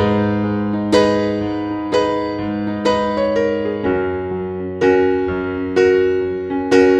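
Background music: slow, gentle solo piano, chords and notes struck about once a second and left to ring.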